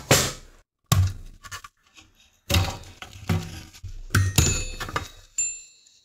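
A series of knocks and clinks, about seven in all, as an Xbox One S motherboard with its fan and aluminium heatsink is handled and set against a rubber work mat. Some strikes near the end leave a brief, high metallic ring.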